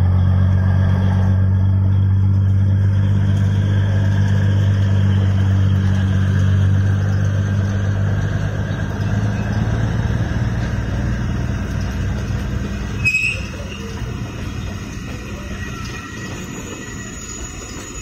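Narrow-gauge diesel locomotive's engine hum fading as it pulls away, giving way to the steady rumble of passenger coaches rolling past on the rails. A single sharp metallic click and squeak from the wheels comes about two-thirds of the way through.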